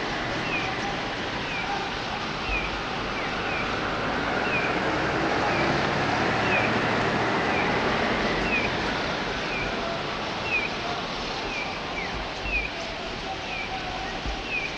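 A flock of white-cheeked starlings chattering as one dense, steady din that swells in the middle. Over it, one short downward-sliding chirp repeats about once a second.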